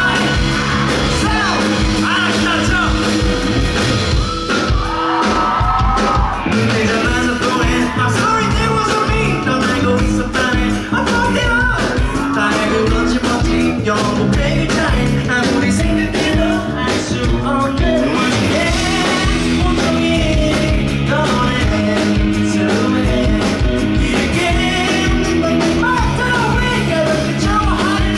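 Live rock band playing with a male lead singer singing into a handheld microphone, loud and continuous, as heard from the audience at a concert.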